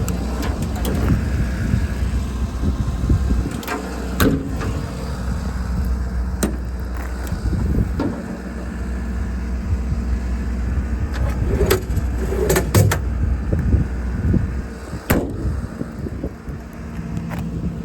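A 6.7 Power Stroke diesel engine idling steadily, with several sharp knocks and clicks over it.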